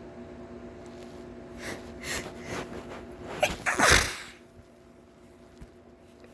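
A person sneezing once, loudly, after a few short gasping in-breaths.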